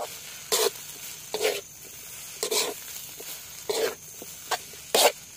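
Metal spatula scraping and turning fried rice in a steel wok, about once a second, over a steady sizzle of frying.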